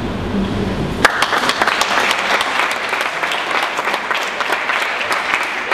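Applause from a group of people, many hands clapping, breaking out about a second in and carrying on steadily.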